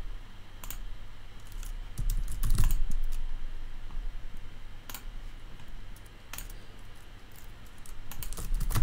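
Computer keyboard typing, in two quick flurries, one about two seconds in and one near the end, with a few single clicks between: nonsense titles being typed and saved.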